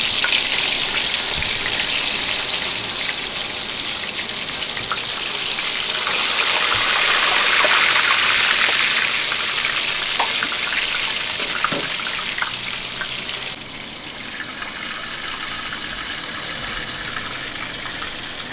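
Seasoned snapper sizzling loudly as it fries in hot oil in a frying pan, with scattered small pops. About 13 seconds in the sizzle drops suddenly to a quieter hiss.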